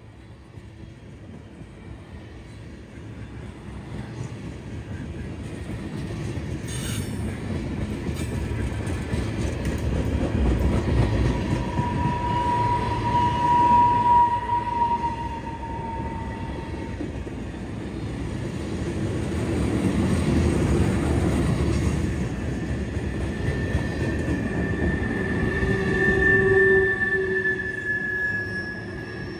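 Tank cars of a CSX freight train rolling past, the wheels rumbling on the rails and growing louder over the first several seconds. Wheels squeal in long, steady high tones that slowly sag in pitch, once a little before the middle and again, higher, near the end.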